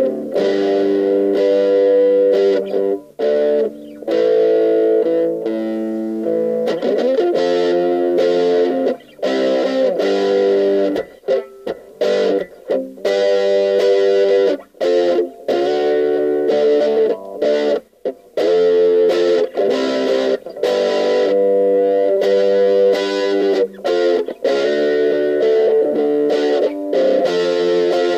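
Electric guitar with an overdriven "brown sound" amp tone playing boogie riffs: chugging chords broken by many short, sharp stops.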